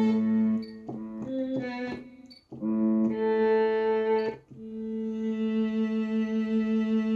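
Yamaha MODX6 synthesizer playing a solo string voice: a held note, a quick run of short notes, another held note, then a long held note with an even vibrato-like pulse.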